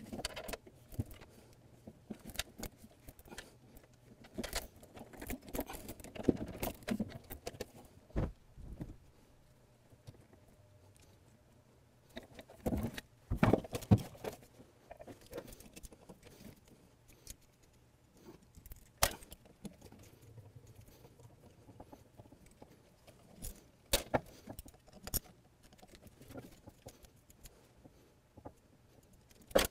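Irregular clicks, taps and clatters of hand tools and metal hose fittings being handled as hydraulic hoses are unbolted and pulled off a convertible-top pump, with a louder clatter about 13 seconds in.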